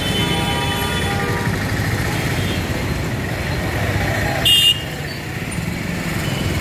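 Busy road traffic, with the engines of lorries, buses and motorcycles running in slow traffic. A vehicle horn sounds for about a second and a half at the start, and a short, loud horn toot comes about four and a half seconds in.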